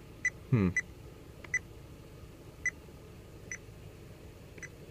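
Fluke digital multimeter giving short high beeps, about six at uneven intervals, as its controls are worked to reset the range. A short vocal sound comes about half a second in.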